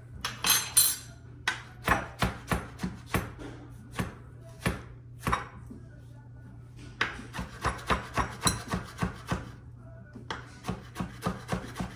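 Chef's knife chopping mango on an end-grain wooden cutting board: runs of sharp knocks on the wood, a few per second, broken by short pauses.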